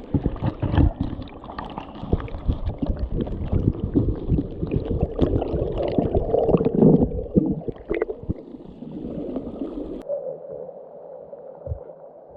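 River water gurgling and splashing close by, a dense run of irregular splashes and knocks. About ten seconds in it cuts off suddenly to a duller, muffled rushing with a few soft thumps.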